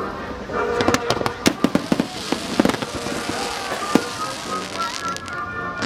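Fireworks bursting in rapid, irregular succession, sharp bangs mixed with a dense crackling in the middle, over music played through loudspeakers.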